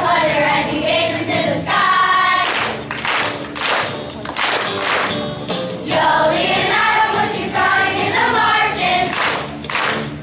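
Children's choir singing a song together, with hand claps along to it.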